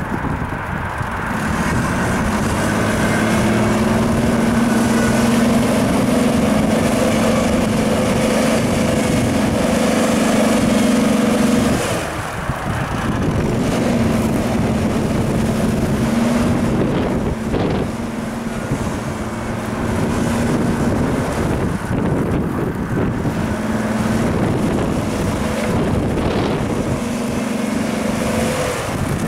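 Ford Explorer's engine revving hard and holding high revs as the SUV churns through deep mud. The revs drop off suddenly about twelve seconds in, then climb and hold again, with another brief dip later.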